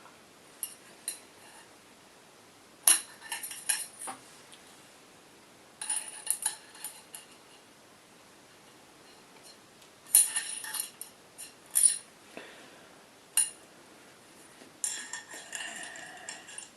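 Small metal rifle parts clinking and knocking as they are handled and set down, in scattered clusters of sharp clicks with a short ring.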